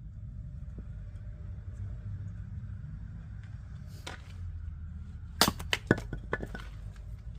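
Oak firewood cracking and breaking apart: a brief rustle about four seconds in, then a quick run of sharp cracks and snaps lasting about a second, over a steady low rumble.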